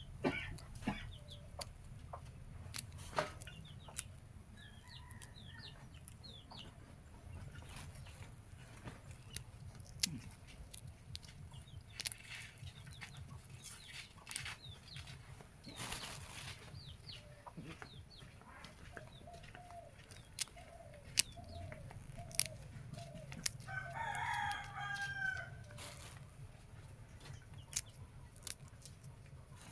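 Chickens clucking in a run of short calls, and a rooster crowing once about four-fifths of the way through. Throughout there are small sharp clicks and snaps from roselle calyces being torn off their green seed pods by hand.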